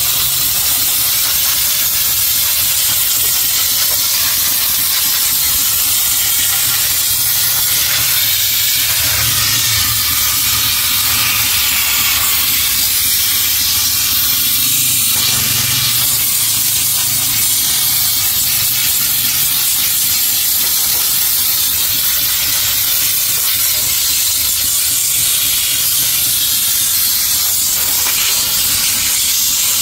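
Compressed-air blow gun giving a steady, loud hiss as it blows dust out of a clogged air filter element.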